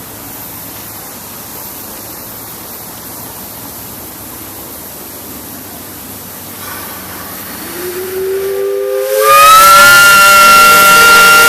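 Steam hissing steadily, then a steam whistle comes on about two-thirds of the way in. It slides up in pitch as it opens, then blows loud and steady through the end.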